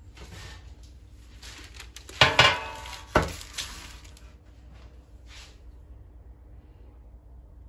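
Kitchenware knocking and clinking: four sharp knocks with a brief ring, the loudest two close together a little over two seconds in, amid softer handling sounds.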